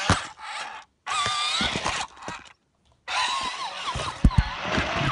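Remote-control stunt toy with spiked wheels running close by on carpet: electric motors whining with wavering pitch, wheels clattering, and a few sharp knocks about four seconds in. The sound cuts out twice briefly.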